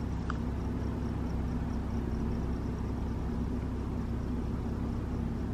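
Steady low hum of a parked car idling, heard from inside the cabin, with a faint high chirp repeating about four times a second.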